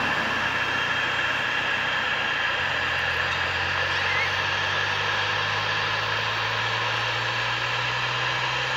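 Embraer E-Jet's GE CF34 turbofans at taxi idle: a steady jet whine with a constant high tone over a hiss. A low steady drone joins about two and a half seconds in.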